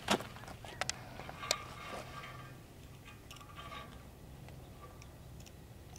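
Scissors snipping through a dead sidewinder's belly skin: a few sharp clicks in the first second and a half, then a few faint ticks.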